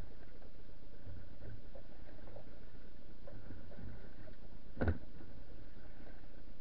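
A single sharp knock about five seconds in, over a steady hiss with faint scattered ticks and soft low thuds.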